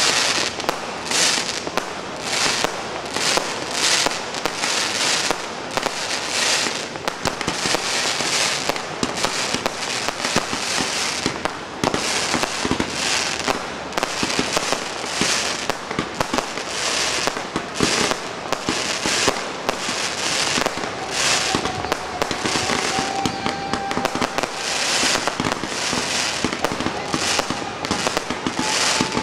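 Pyrotechnic fireworks display: a continuous string of sharp bangs, roughly one a second, over unbroken crackling.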